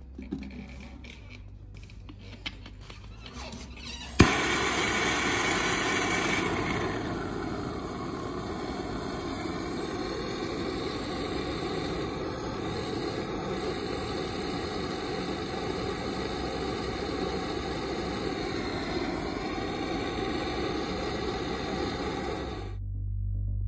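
Hand-held gas torch lighting with a sharp click about four seconds in, then burning with a steady loud hiss while it heats the radiator's top tank seam for soldering, and cut off shortly before the end.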